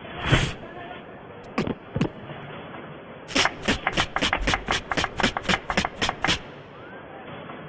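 Human beatbox mouth percussion imitating a Pokémon's sound effects: a short burst, two single clicks, then a quick, even run of about sixteen sharp clicks, roughly five a second, that stops suddenly.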